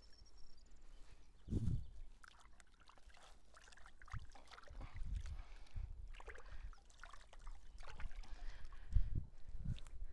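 Small splashes and trickling water around a fishing keepnet in the shallows, with a few low thumps from handling.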